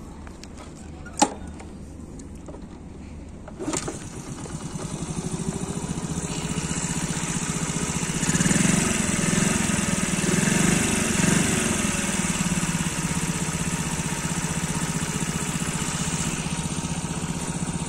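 A Honda Super Cub's small four-stroke single-cylinder engine is started after a sharp click about a second in, catching about four seconds in. It picks up to a higher, wavering speed for a few seconds, then settles into a steady idle.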